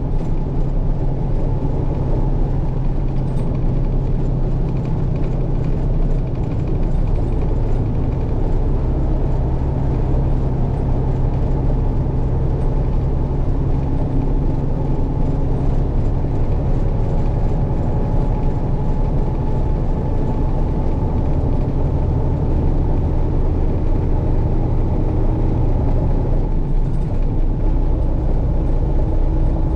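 Truck engine and road noise heard from inside the cab while driving: a steady, loud, low drone.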